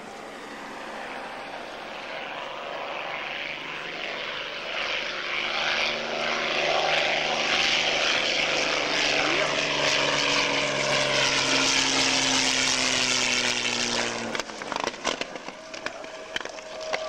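P-51D Mustang's Merlin V-12 engine and propeller on a low pass, swelling as the plane approaches and then holding loud, its pitch sinking a little as it goes by. The sound cuts off abruptly about three seconds before the end, followed by a few scattered clicks.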